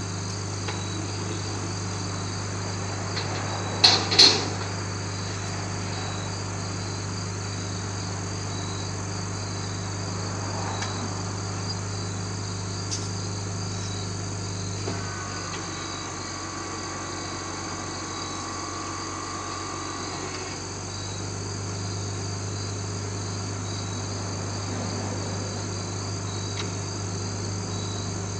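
Crickets chirping steadily over a low, steady hum, with two sharp knocks about four seconds in.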